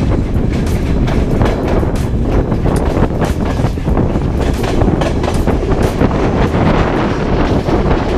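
Passenger train running along the track, heard from the carriage window: a loud, steady rumble with frequent irregular clicks and clacks from the wheels and rail.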